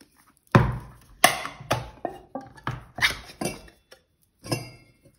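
Sharp metallic clinks and knocks from a stainless-steel mesh strainer being handled on a wooden cutting board. About eight come in quick succession over three seconds, then one more near the end.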